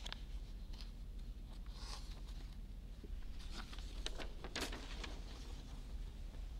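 Papers rustling and being handled at a lectern microphone: a few short, soft scratchy rustles, the clearest about four and a half seconds in, over a steady low hum.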